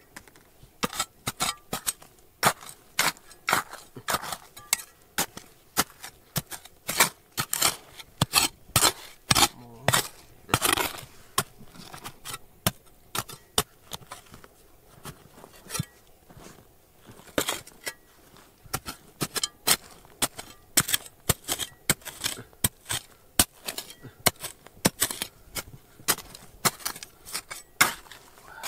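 Hand tools striking stone and earth while digging: an irregular run of sharp knocks and clinks, often two or three a second, with a few short quieter spells.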